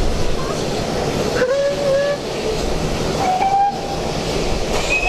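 GWR 'Hall' class 4-6-0 steam locomotive standing in steam, giving a steady hiss. Three brief high tones sound over it, about a second and a half apart.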